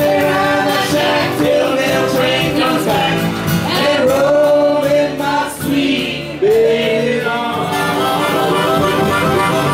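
Live folk-country band music: a woman singing over strummed acoustic guitar, with a harmonica taking the lead near the end.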